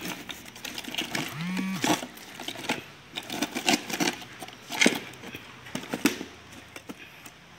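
Irregular clicks and knocks of things being handled, the loudest about five seconds in, with one short low call about a second and a half in that rises in pitch and then holds.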